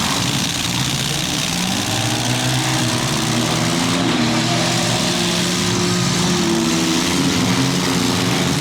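Several compact-car demolition derby engines running and revving together, their pitches rising and falling against one another over a steady hiss.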